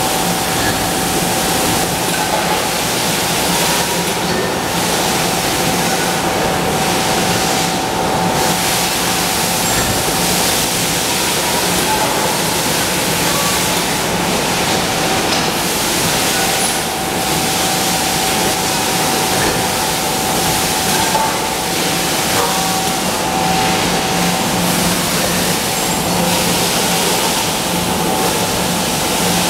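Machinery of an aluminium cookware production line running: a steady mechanical din with a constant low hum and a steady higher whine.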